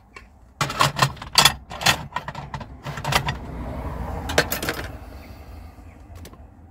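Metal cooking utensils and cookware being handled and set down, a quick run of sharp clinks and clatters, then a few more about four and a half seconds in. A low rumble swells under them in the middle and fades.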